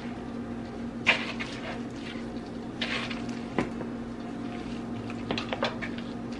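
Seasoning powder shaken from a plastic spice shaker over raw chicken pieces in a plastic bowl: a few short hissy rattles, then some small clicks near the end, over a steady low hum.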